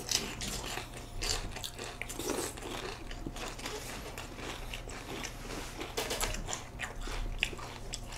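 People chewing mouthfuls of Special K Original cereal flakes in milk: a continuous, irregular run of short crisp crunches.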